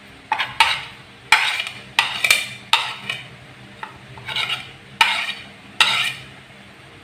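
A spoon scraping dried rebon shrimp off a plastic plate into a plastic bowl: a run of short, sharp scrapes and taps, about one or two a second with short gaps between.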